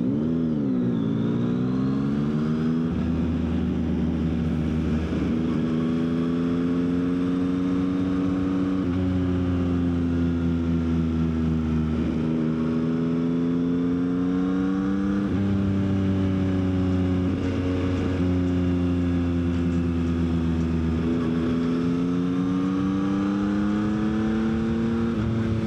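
Yamaha XSR900's inline three-cylinder engine running under way through tight bends. Its note rises and falls steadily as the throttle opens and closes, with a few short drops in pitch, like gear changes.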